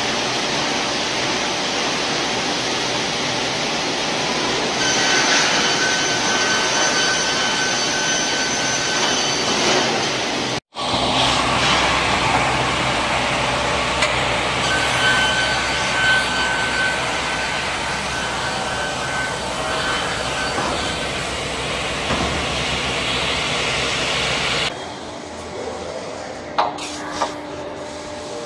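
Perun MKS-1000 single-shaft multi-rip circular saw running and ripping a 50 mm plank, a loud steady whirring with a high whine rising over it twice while the blades are in the wood. Near the end the noise drops to a lower steady hum, with two short knocks.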